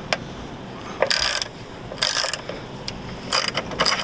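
Ratchet wrench clicking in several short bursts, about a second apart, as it works a valve-cover bolt on a Caterpillar C15 diesel engine being stripped down.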